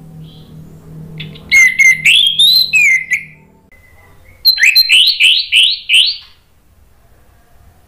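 Orange-headed thrush singing: two loud phrases of quick rising whistled notes, each about two seconds long, with a short pause between them.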